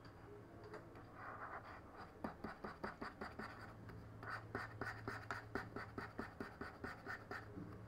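Rapid light clicking, several clicks a second, with two short scratchy strokes, from a hand working a computer input device while painting weights. A low steady electrical hum runs underneath.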